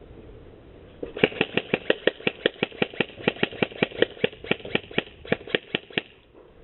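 Airsoft rifle firing a fast string of single shots, about five sharp clacks a second at a slightly uneven pace, starting about a second in and stopping near the end.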